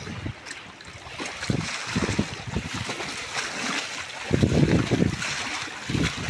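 Sea water splashing and sloshing around a man swimming in the sea, with wind buffeting the microphone.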